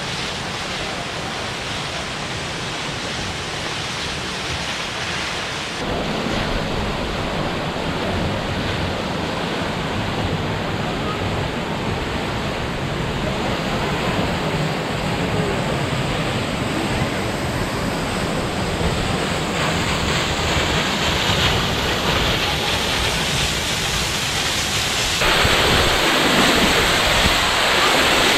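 Lower Emerald Pool waterfall pouring off the sandstone cliff rim and splashing down, a steady rush of falling water running high with spring snowmelt. It gets louder in two steps, about six seconds in and near the end.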